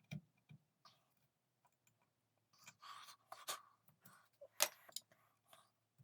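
Faint hand-tool work: a few short scraping strokes and scattered clicks and taps, the loudest a sharp tap about three-quarters of the way through.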